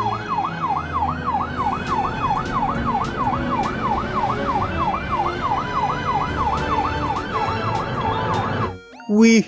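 Yelp-style siren, its pitch sweeping rapidly up and down about three times a second over a low rumble, cutting off shortly before the end.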